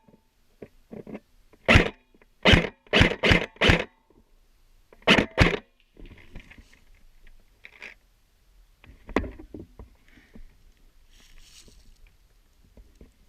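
An airsoft gun firing single shots, about nine sharp cracks in the first six seconds, some in quick succession. After that comes quieter rustling with one more sharp click.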